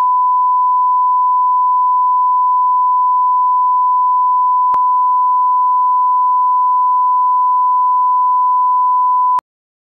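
1 kHz line-up reference tone of a bars-and-tone broadcast leader: one steady, pure, loud beep that cuts off suddenly near the end.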